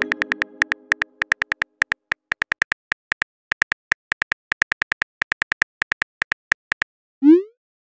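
Texting-app keyboard click sounds: a quick run of short taps, about four or five a second in bursts with brief pauses, as a message is typed. The tail of a chime fades out at the start, and a short rising blip sounds near the end.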